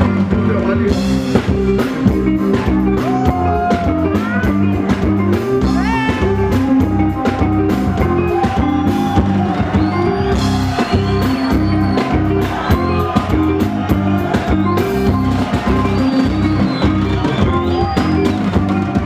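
Live band playing an instrumental passage: a bass line and drum kit keep a steady beat under melodic lines that bend in pitch.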